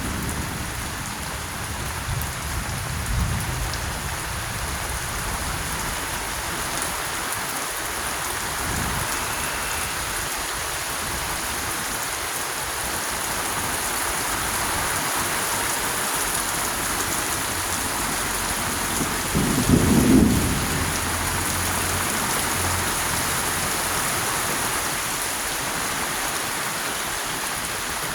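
Heavy rain falling steadily in a continuous hiss. About two-thirds of the way through comes a brief low rumble, the loudest moment.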